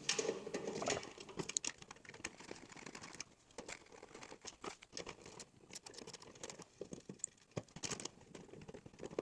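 Faint, irregular light clicks and rattles of a hand tool and loose bolts on metal as the recoil starter housing is unbolted from a snowblower's engine.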